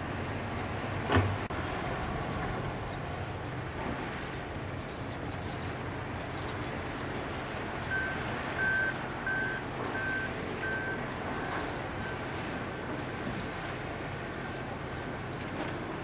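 Steady low rumble of a running vehicle engine, with a sharp knock about a second in. About eight seconds in comes a short run of five evenly spaced high electronic beeps, like a vehicle's reversing alarm.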